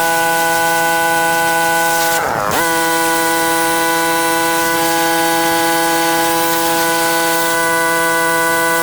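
Pressure washer running with a steady motor whine and spray hiss. About two seconds in, the spray cuts out and the motor pitch dips and comes back up for about half a second before it runs on steadily.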